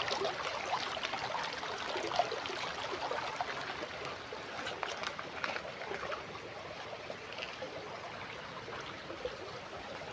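Small river water flowing and trickling, with a scatter of small gurgles and splashes that thins out after about six seconds.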